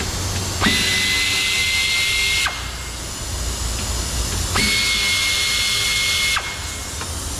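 Cordless drill/driver running twice, about two seconds each time, a steady whine that starts and stops abruptly, backing out two small T20 star-head screws.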